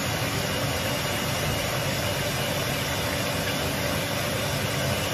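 Electric hand mixer running steadily, its beaters whisking a runny egg batter in a glass bowl.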